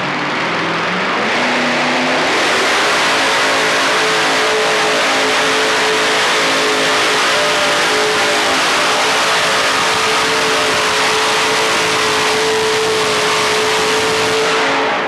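Modified pulling tractor's Chevrolet engine revving up over the first two seconds and then held wide open at high RPM under load through the pull. The engine drops off right at the end as the pull finishes.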